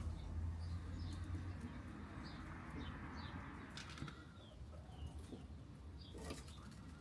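Small birds chirping faintly with short, high, repeated calls. A soft hiss swells and fades in the first half, and a few sharp clicks of tools or metal come near the middle and end.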